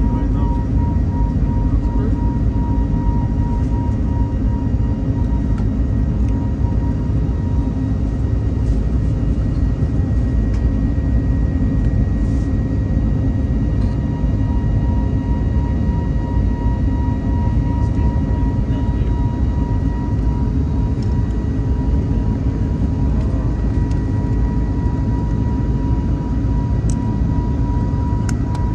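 Cabin noise of a jet airliner climbing after takeoff, heard from inside the cabin: a steady, deep rush of engine and air noise with a steady high whine over it.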